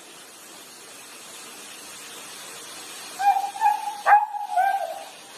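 A dog howling in several short, wavering, drawn-out calls that start about three seconds in, with a sharp click partway through.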